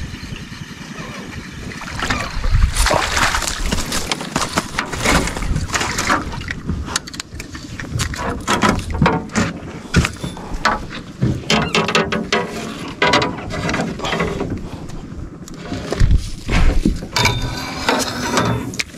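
A hooked hampala barb splashing at the surface as it is brought to a landing net, with the net and its frame clattering and knocking against the boat as the fish is lifted aboard.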